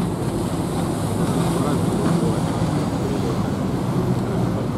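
Steady rumble of wind on the microphone over the drone of boat and jet ski engines on the river.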